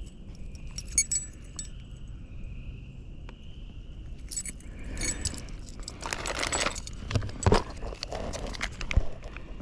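Small metal fishing tackle clinking and rustling as it is handled, with a run of sharp clicks and rattles in the second half. A steady high insect trill runs behind it and fades out about halfway through.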